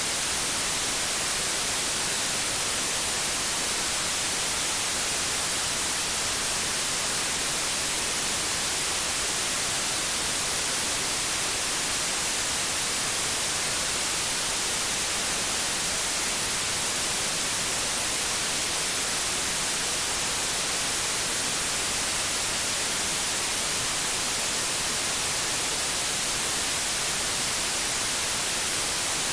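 Synthetic white noise: a steady, even hiss, strongest in the highs, that never changes.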